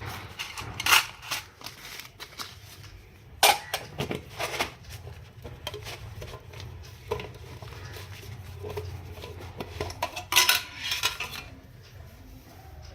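Metal box and its parts being handled: scattered clinks, taps and scrapes of metal on metal, with the loudest knocks about a second in, about three and a half seconds in, and a cluster of rattling clinks near the end.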